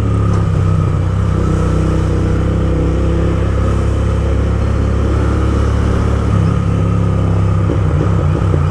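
Royal Enfield Interceptor 650's parallel-twin engine running through a loud aftermarket Gursewak exhaust while riding in traffic. It runs steadily, then turns uneven and crackly for a couple of seconds near the end.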